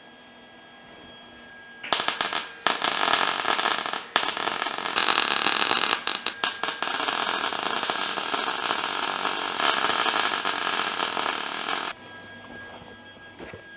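Welding steel brackets: a loud, steady crackling arc that starts about two seconds in, breaks off briefly a few times, and stops abruptly near the end.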